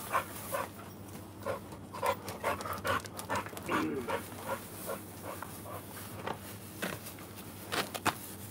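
A bully-breed dog panting in short, quick breaths about twice a second, with a couple of sharp clicks near the end.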